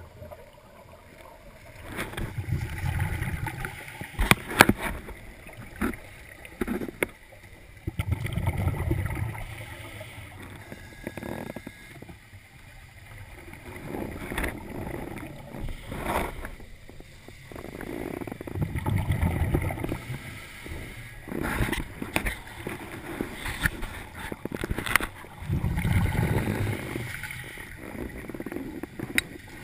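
Scuba diver breathing through a regulator underwater. Exhaled bubbles rumble for a second or two, repeating about every five or six seconds, with quieter stretches and a few sharp clicks between breaths.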